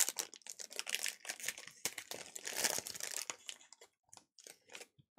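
Foil wrapper of a Topps Museum Collection trading-card pack crinkling and tearing as it is opened by hand. The dense crackling thins to a few scattered ticks after about three and a half seconds.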